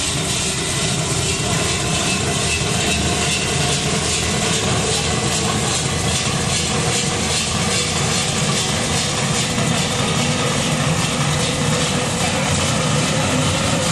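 Metal spinning lathe running, a large sheet-metal disc turning on the mandrel under the forming roller: a steady mechanical hum with a bright hiss.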